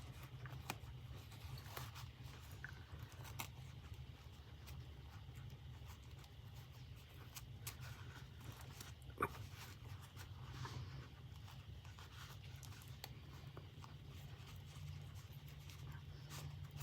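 Low steady hum with scattered faint clicks and small handling noises as fabric is pressed into a glued metal purse clasp frame; one sharper click about nine seconds in.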